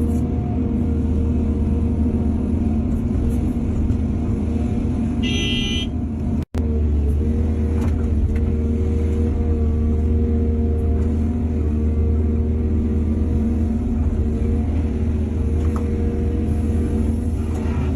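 Diesel engines of heavy earthmoving machinery running steadily, with a short high-pitched horn toot about five and a half seconds in. The sound drops out for an instant just after.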